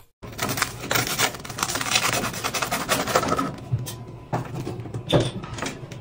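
Crisp crust of a toasted, cheese-topped stuffed bread roll crunching and crackling as it is cut and broken open by hand. The crackles come in a dense, irregular run, thin out after about three and a half seconds, and end with a couple of louder cracks.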